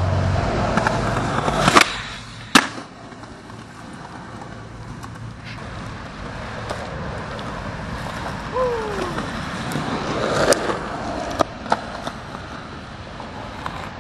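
Skateboard wheels rolling on concrete, with sharp clacks of the board hitting the ground: two loud ones about two seconds in, and several more in the last few seconds.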